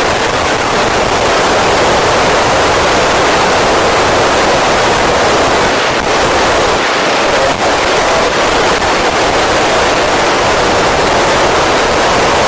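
Steady, loud FM radio hiss from an Icom ID-5100 transceiver's speaker, tuned to the AO-27 satellite downlink with no station being heard.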